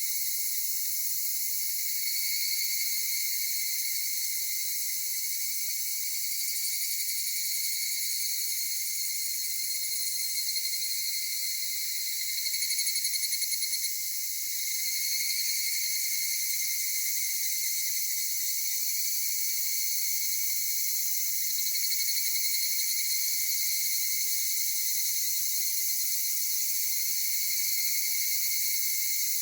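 Dense, steady chorus of insects in several shrill, high-pitched layers, with one call swelling louder and pulsing for about two seconds near the middle.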